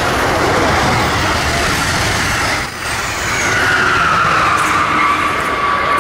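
Amtrak Keystone train with an ACS-64 electric locomotive passing close on the adjacent track: a loud, steady rumble and rush of wheels on rail. After a short break, a high tone slides slowly down as the locomotive goes by.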